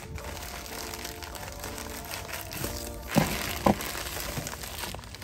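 A plastic mailer bag rustling and crinkling as it is pulled open and a bubble-wrapped package is taken out, over soft background music. Two sharper crackles come about three and three and a half seconds in.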